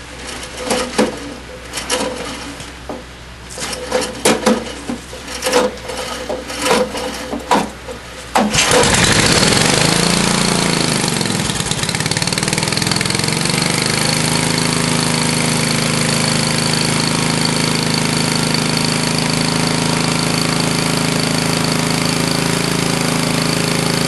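Cold start of a 1962 Snow Bird S-262 snowblower's small gasoline engine, frozen up from sitting in an unheated shed: irregular clicks and knocks from the starting attempt, then about eight and a half seconds in the engine catches suddenly, wavers in pitch for a few seconds and settles into steady running.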